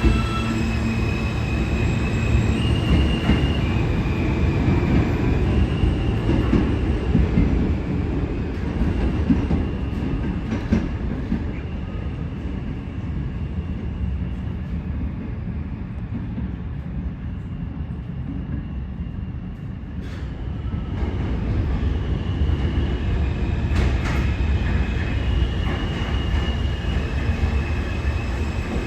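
R160 subway train running through the station: a loud rumble of wheels on rail with short high-pitched wheel squeals. It eases off around the middle and builds again in the last third.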